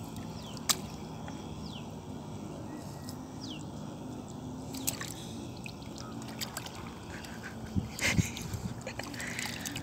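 Soft sloshing and dabbling of shallow muddy water as a small child scoops and rubs mud in an irrigation channel. A steady low hum sits underneath, with a few faint clicks and short high chirps.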